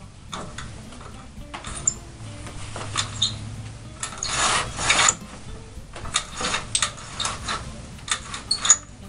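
Horizontal window blind worked by its pull cord: the cord lock and head rail click and ratchet, and about four seconds in the slats rattle down in a longer clatter, followed by more short clicks and rattles as the cord is tugged.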